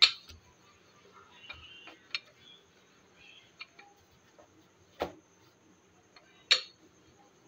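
Wooden rolling pin working pizza dough on a plastic cutting board, giving a few sharp, irregular knocks as it strikes the board. The loudest knocks come right at the start and about six and a half seconds in.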